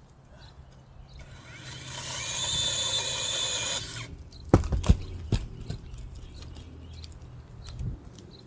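Chainsaw cutting a tree branch: it runs for about two and a half seconds and cuts off suddenly. A few sharp knocks follow about a second later.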